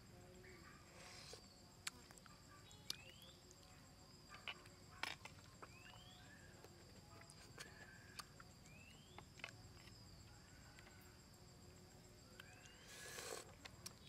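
Faint forest ambience: a steady high insect drone with a short rising chirp every second or two. A few sharp clicks, typical of a metal spoon against a clay bowl, and a brief louder rustle near the end.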